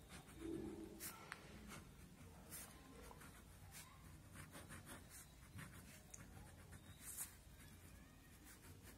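Ballpoint pen (a Montex Hi-Fi) writing on paper: faint scratching in a run of short separate strokes.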